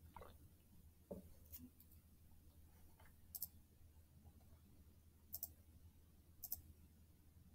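Near silence: room tone with a few faint, sharp clicks, one about three seconds in and two more near the end.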